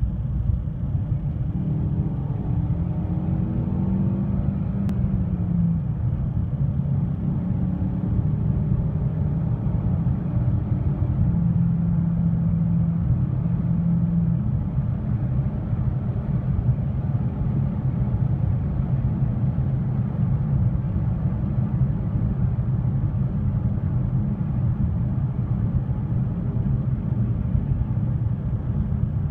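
Inside the cabin of a Lada Vesta with an AMT robotized gearbox at highway speed: steady low engine and road rumble from its four-cylinder petrol engine. The engine note rises for a few seconds early on as the car accelerates, then holds steady.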